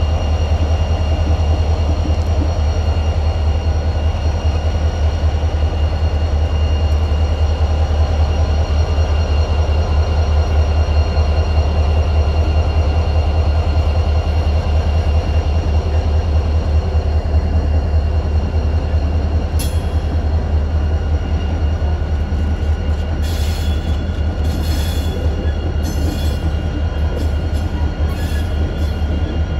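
Two diesel-electric locomotives, GM-class GM27 and CLP-class CLP9, moving slowly past with a deep, steady engine throb and steady whine tones. From about twenty seconds in, short high-pitched scraping bursts come and go.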